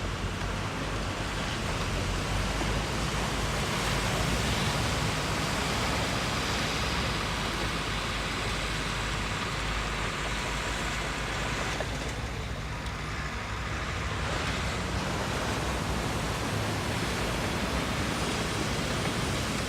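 Heavy machinery engines running steadily: a low engine hum under a broad rushing noise.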